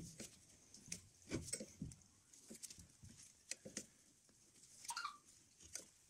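Faint, irregular clicks, taps and scrapes from a screw-type brake piston compressor being wound in on a Mercedes Vito W639's twin-piston front caliper, pressing both pistons back over an old brake pad. A short squeak comes about five seconds in.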